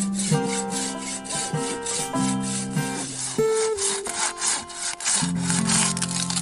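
A folding pruning saw cutting through a dry, dead juniper branch in steady back-and-forth strokes, with music playing underneath.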